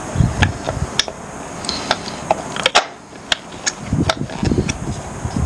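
Scattered light clicks and ticks of a thin wire and a charger cable being threaded by hand through a motorcycle's frame, with handling rustle.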